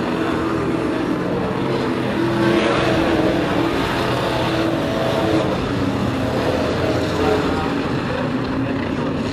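Engines of several sport-class race trucks running at racing speed as the pack goes around the oval, the engine notes rising and falling, a little louder about two and a half seconds in.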